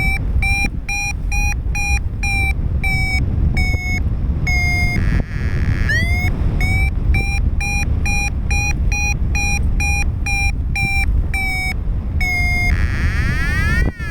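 Paraglider's variometer beeping rapidly, about three short beeps a second at a steady pitch: the climb tone of strong lift. A steady low rush of wind noise on the microphone runs underneath.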